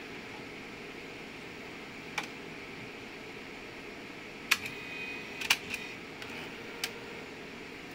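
Epson PP-100II disc publisher's disc-transfer mechanism working over the machine's steady hum: a single click about two seconds in, then a cluster of sharp mechanical clicks from about halfway, with a short motor whine between the first two, as a disc is picked up from the tray.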